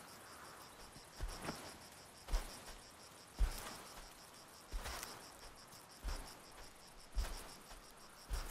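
Crickets chirping in a steady, rapid pulse. Over it come heavy, dull thuds about once a second, the footfalls of a walking elephant.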